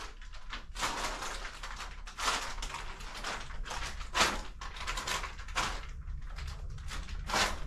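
Irregular soft scuffs and rustles of someone moving about in a small empty room, one every half second to second and a half, over a faint steady low hum.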